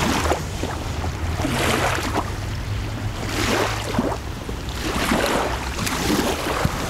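Wind on the microphone, rising and falling in gusts about every second or two over a steady low rumble.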